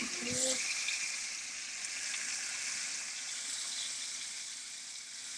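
Fish frying in hot oil in a skillet: a steady sizzle, the fillets nearly done and golden.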